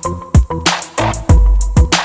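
Background music with a steady electronic drum beat, deep bass and crisp high ticks.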